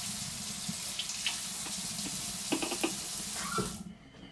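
Hot water running from a kitchen faucet in a steady hiss, with a few light knocks as a tablespoon is filled under it, until the tap is shut off near the end.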